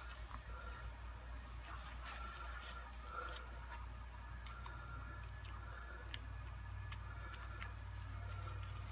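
Faint soft wet squishes and small scattered clicks as a shaving brush loaded with thick lather is handled, over a low steady hum.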